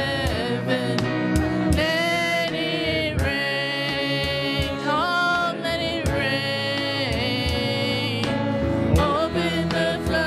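Worship music: a singer holding long, wavering notes over a band with bass and occasional sharp drum hits.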